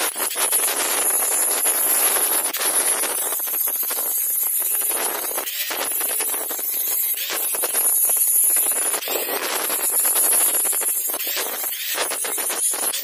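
Angle grinder running with its disc grinding a metal workpiece clamped in a vise: a high motor whine over the rasp of the disc on metal, swelling and easing repeatedly as the disc is pressed on and lifted off.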